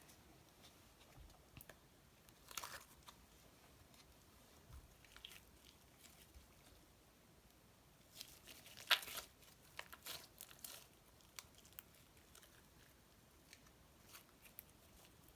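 Slime being worked by hand: faint, scattered sticky crackles and clicks, with a busier, louder cluster about halfway through.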